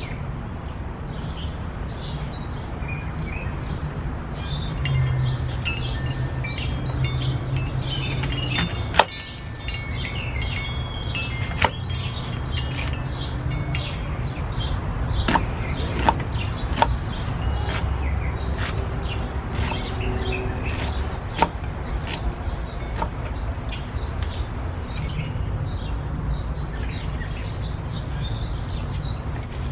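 A kitchen knife cutting green peppers and a red onion on a wooden log chopping block, with faint ticks and a few sharp knocks of the blade on the wood. Short high tinkling tones come and go over a steady low rumble.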